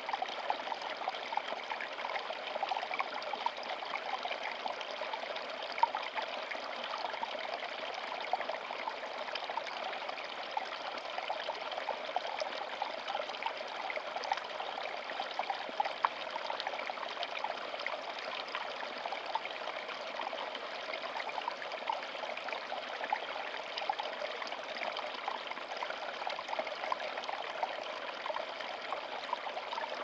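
Shallow stream of water trickling and splashing over rocks beneath ice, with a small spill of water falling from under the ice. A steady, even flow dotted with many small plops and splashes.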